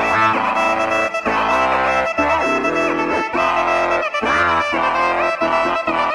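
Background music: a brass-led tune with sliding notes, played in short phrases with brief breaks.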